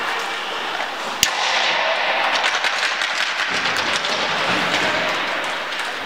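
An ice hockey shot: a single sharp crack of stick on puck about a second in, followed by a few seconds of rink crowd noise with scattered claps and knocks.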